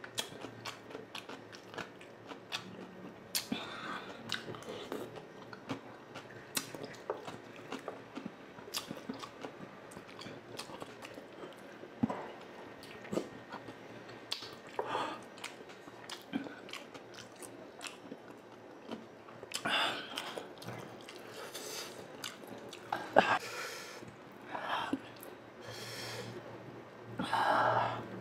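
Close-miked chewing of a mouthful of deep-fried, orange-battered eggs (kwek-kwek), with many small wet mouth clicks and smacks. There are a few louder, breathier mouth noises in the second half.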